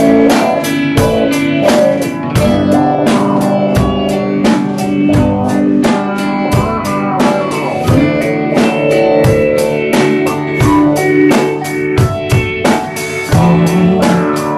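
Rock band playing a song live, with a drum kit keeping a steady beat under guitar.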